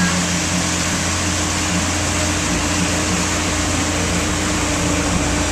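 Motorboat engine running steadily at towing speed, a constant low drone under the rush of churning wake water.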